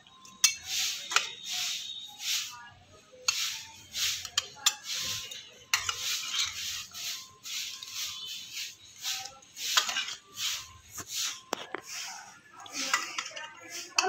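A spatula scraping and scooping in a pan, lifting fish and gravy onto a plate: repeated short scrapes, about one or two a second, with a few sharp clinks of the spatula against the pan or plate.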